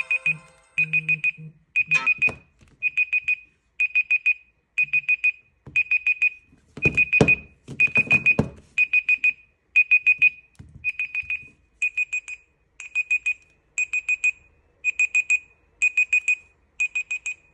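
Smartphone timer alarm beeping after the countdown has run out: quick bursts of about four high beeps, roughly one burst a second. A few thumps near the middle come from the phones being handled on the table.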